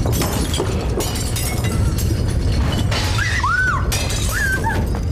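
Earthquake sound effects: a deep continuous rumble with glass shattering and objects crashing and breaking. A few short high cries rise and fall over it about three seconds in and again near the end.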